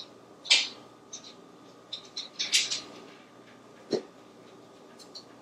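African grey parrot making short high clicks and hissy squeaks at scattered moments, with one sharp knock about four seconds in.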